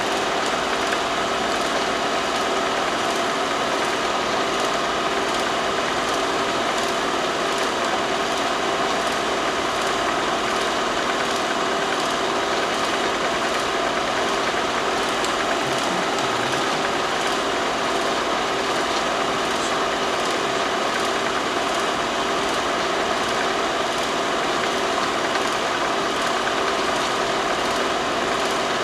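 Film projector running: a steady mechanical drone with several constant hum tones.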